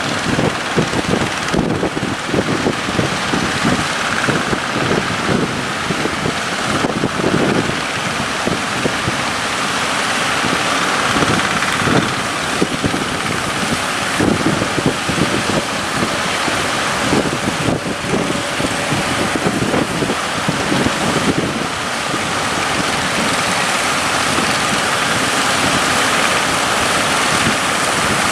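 Wind buffeting the microphone over the steady running of a boat's engine and rushing seawater, with a fast, rough flutter in the low end through most of it.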